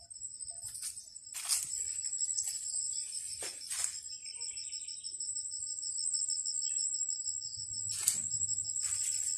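Insects trilling steadily at a high pitch, with a fast pulsing texture, and several brief rustles of leaves brushing close by.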